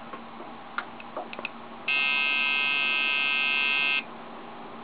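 The Dell XPS 400 motherboard's speaker sounds one long, steady electronic beep of about two seconds, after a few light clicks. It is the board's failure beep: it will not start up and gives no video.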